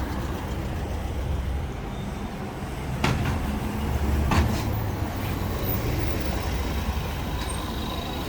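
Outdoor street noise: a steady low rumble, with two sharp knocks about three and four seconds in.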